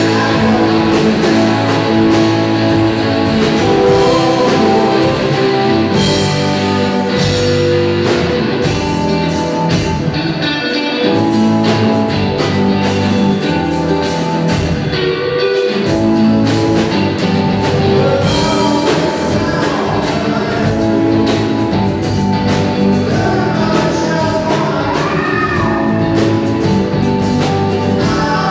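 A live rock band playing a funk jam: electric guitar, bass guitar and drum kit, heard in a large hall.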